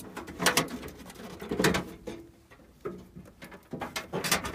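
Metal clanks and scrapes as the heat exchanger and burner chamber of a Takagi tankless water heater are fitted into the unit's sheet-metal body: a few irregular knocks and rubbing noises, quieter in the middle.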